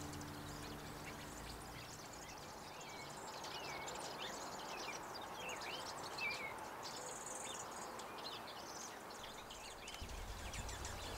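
Faint outdoor ambience: small birds chirping over a soft, steady background hiss, with a brief high insect-like buzz about seven seconds in.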